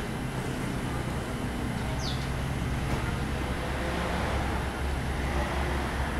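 Steady low rumble of background traffic. A short, high, falling chirp comes about two seconds in.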